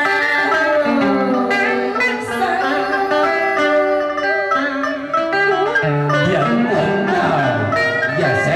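Đờn ca tài tử accompaniment: plucked string instruments playing a flowing melodic passage between sung lines of a cải lương excerpt.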